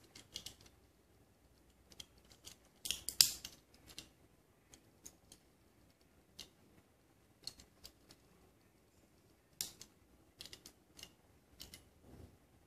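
Light clicks and taps of fingers handling a die-cast Tomica Toyota Sprinter Trueno AE86 toy car and working its tiny opening door. There is a loud cluster of clicks about three seconds in and another run of clicks from about ten seconds on.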